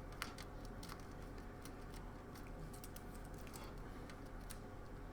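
Faint, scattered light clicks and ticks of plastic ATX power cable connectors being handled and fitted together, over a steady low electrical hum.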